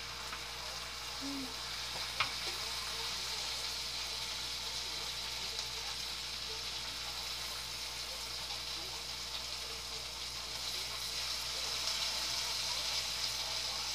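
Crappie fillets frying in hot melted butter in a pan: a steady sizzling hiss that grows slightly louder near the end as more fillets go in, with one sharp click about two seconds in.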